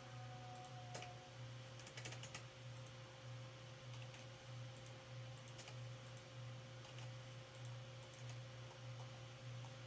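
Faint scattered clicks, a small cluster about two seconds in and single ones after it, over a steady low hum and a faint steady tone.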